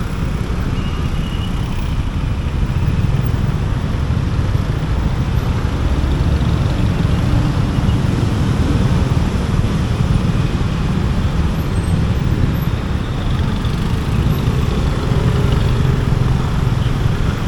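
Steady engine and road noise heard from a moving motorcycle in city traffic, with a heavy low rumble.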